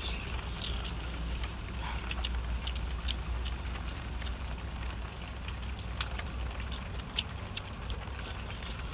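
Close-up eating sounds: chewing of a fried chicken cutlet, with many small irregular mouth clicks and crackles over a steady low hum.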